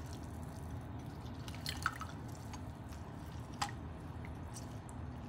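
Lemon juice dripping from a handheld lemon squeezer into a glass mug of tea: a few separate drips, the clearest about two seconds in and again past halfway, over a low steady hum.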